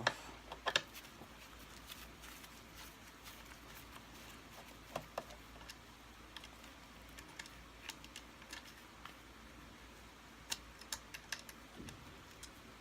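Sparse light clicks and taps of plastic parts being handled while the light fixture is worked off a Kirby Sentria II vacuum: a couple just after the start, one about five seconds in and a cluster near the end.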